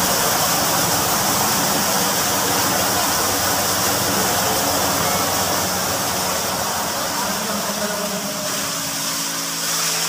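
Water gushing out of a newly fitted ball-float valve into a concrete cistern tank: the valve is open and filling the tank. It makes a loud, steady rushing hiss with a low steady hum underneath.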